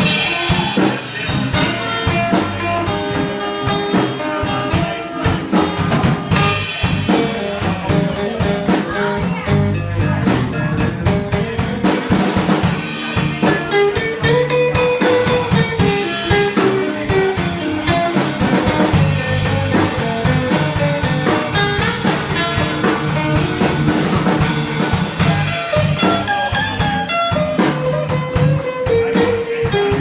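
Live rock band playing: electric guitars and bass guitar over a steady drum kit beat, with a note bending up and down about halfway through.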